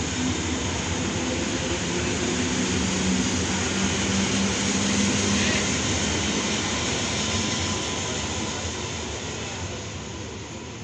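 Regional electric multiple unit running past on the rails, with wheel and rolling noise and a low traction-motor hum. It is loudest about halfway through, then fades as the train moves away.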